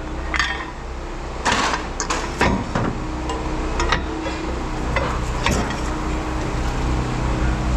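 Scrap metal clanking and knocking several times as it is handled, over a steady low machine hum.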